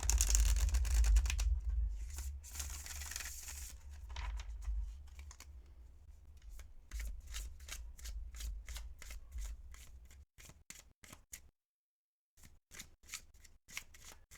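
Tarot cards being shuffled by hand. A dense rustle of cards runs for the first few seconds, then a run of quick separate card flicks and taps that stop and start.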